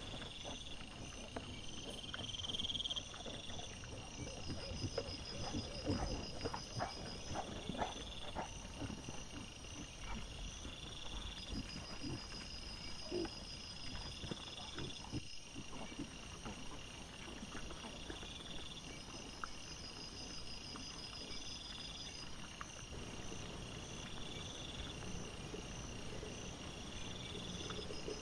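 Night insect chorus: pulsed calls repeating about every two seconds, with scattered faint clicks.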